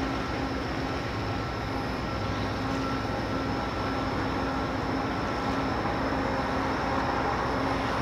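Ship engines and machinery across the harbour: a steady low rumble with a faint hum running through it.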